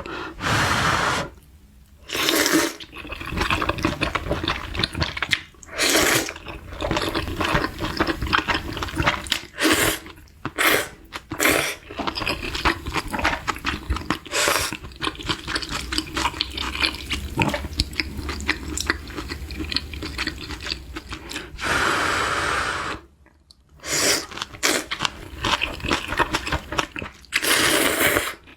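Close-miked eating sounds: wet chewing and mouth clicks, broken every few seconds by a loud slurp of kimchi udon noodles.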